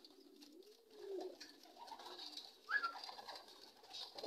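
Racing pigeons cooing softly: a few low coos that rise and fall in the first second and a half, then a short, higher note about two-thirds of the way through.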